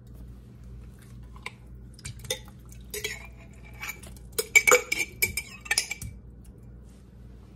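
Metal spoon clinking and scraping against a glass canning jar and a stainless steel pot while chunks of home-canned chicken are dug out into the pot. Scattered clinks at first, then a quick run of loud clinks with a brief metallic ring about four and a half seconds in.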